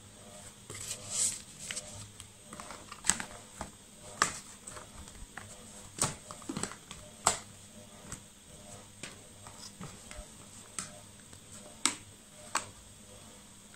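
Handling noise: paper and card rustling as the manual and certificate are set down, and scattered light clicks and taps as the plastic multimeter case is picked up and turned over.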